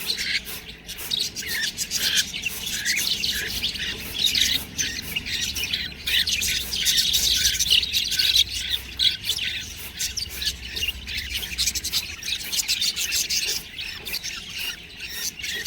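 Budgerigars chattering: a steady stream of short, high chirps and squawks that overlap one another.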